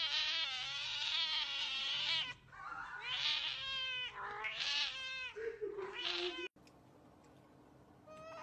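A cat meowing: one long yowl with a wavering pitch, then about four shorter meows, then the sound cuts off suddenly. Just before the end a second cat starts a short meow.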